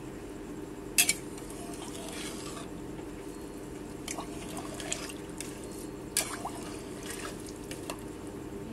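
A steel ladle stirring rice, potatoes and water in a metal pressure cooker: liquid sloshing, with the ladle clinking against the pot several times, sharpest about a second in. A steady low hum runs underneath.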